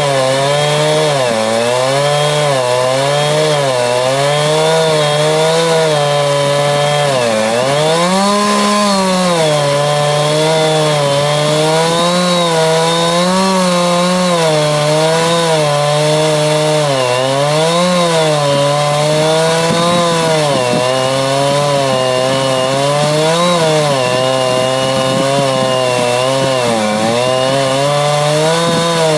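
Chainsaw running under load while ripping lengthwise through a log to mill a board. The engine pitch wavers up and down every second or two as the cut is fed, with a deeper dip and recovery about seven seconds in.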